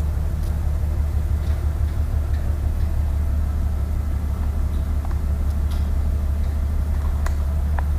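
Steady low drone of a container ship under way: engine and machinery hum carried through the bridge, unchanging throughout, with a few faint clicks.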